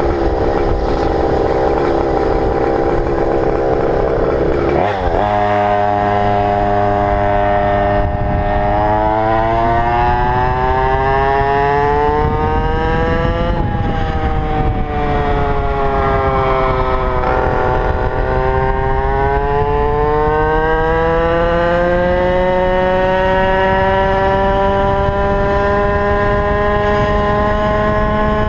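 Small two-stroke Goped scooter engine (GP460) running under throttle: uneven and rough for the first five seconds, then suddenly a clean, steady note whose pitch climbs, drops away near the middle, and climbs again as the revs build.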